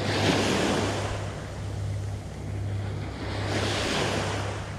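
Small waves breaking and washing up a sandy beach, swelling twice: just after the start and again near the end. Underneath runs a steady low rumble of wind on the microphone.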